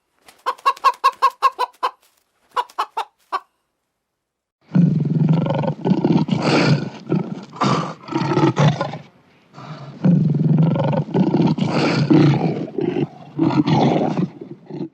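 A hen clucking in quick, even pulses for about three seconds. After a short pause, a big cat roars in a run of long, rough, loud roars.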